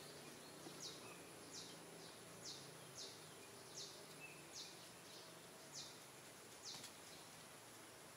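Quiet outdoor ambience with a faint, high, short chirp repeating about nine times, roughly once a second, over a soft steady hiss.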